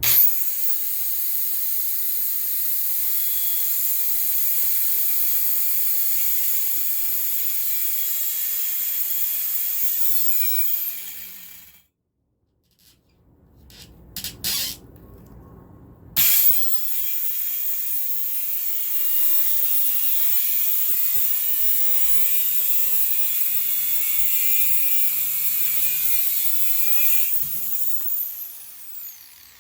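Compact Ultra Saw power saw cutting a wood laminate floor plank in two long runs of about eleven seconds each, with a steady motor whine. Between the runs there are a few seconds of quiet with a few light clicks.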